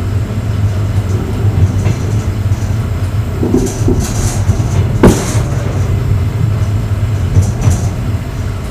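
Passenger railway coach running on the line, heard from the vestibule of the last car: a steady low rumble of wheels on rail, with light rattles and one sharp knock about five seconds in.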